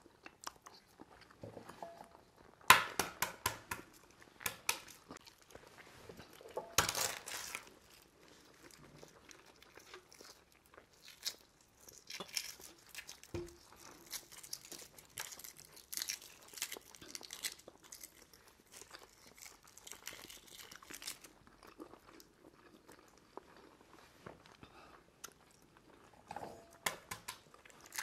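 Hard-boiled eggshells being cracked and peeled by hand: irregular crackling and crinkling of shell, loudest in two short bursts about three and seven seconds in.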